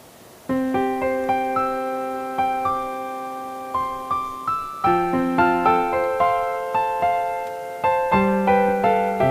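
Slow piano intro of a karaoke backing track: single notes and soft chords, each struck and left to ring out, beginning about half a second in.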